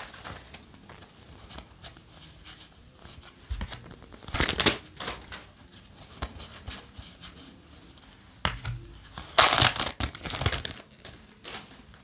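Foil booster-pack wrapper crinkling and tearing as a pack of trading cards is opened, in two louder bursts about four seconds in and again around nine to ten seconds in. Between them, paper cards rustle and slide faintly as they are handled.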